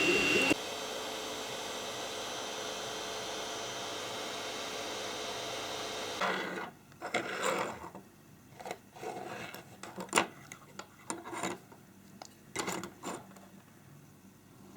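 A steady machine hum for about six seconds that cuts off, followed by a series of short, irregular scraping and rubbing sounds.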